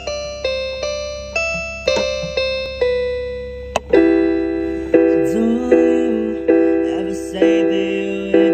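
Slow solo piano playing: notes struck at a steady pace and left to ring, then fuller chords after a brief break about four seconds in.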